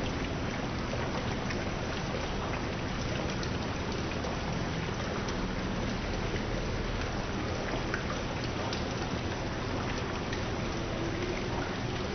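Water from a large stone wall fountain falling down its textured panels into a pebble-filled basin: a steady, rain-like splashing and trickle.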